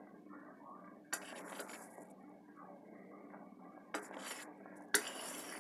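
A metal spoon stirring a creamy pasta dish in a metal skillet, knocking and scraping against the pan with three sharp clinks: about a second in, and twice near the end.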